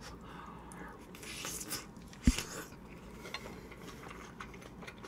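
A person chewing a mouthful of stir-fried beef intestine and rice with her mouth closed: faint wet chewing noises. A single sharp knock comes a little over two seconds in.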